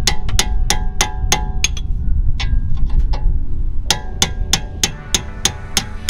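Hammer blows on a steel bar held against the front suspension, driving out the seized old front control arm. The blows come about three a second, each with a metallic ring. They pause for about two seconds in the middle, then start again.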